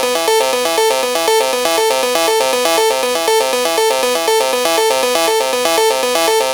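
Synthesized electronic tones repeating a fast, looping melodic pattern of a few notes, an electronic alert jingle in a mock Emergency Alert System alarm.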